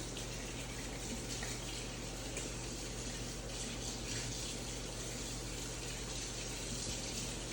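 Battered chicken wings frying in hot oil, a steady, even sizzle.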